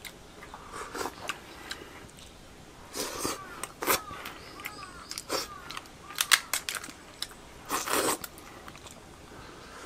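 Eating a boiled swimming crab by hand: scattered crunches and cracks of shell with sucking and chewing at the meat, loudest in short bursts around three, four, six and eight seconds in.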